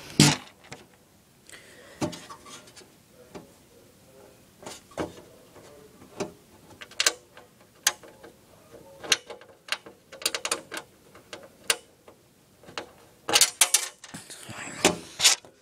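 Screwdriver driving a screw into a DVD drive mounted in a computer case's drive bay: scattered, irregular metallic clicks and scrapes, with a quick run of clicks near the end.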